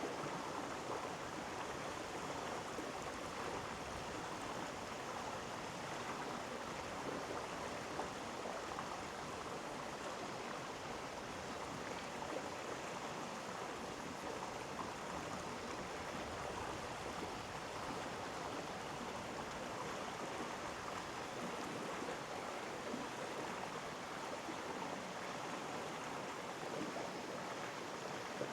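Mountain stream flowing over rocks in a gorge: a steady, even rushing of water.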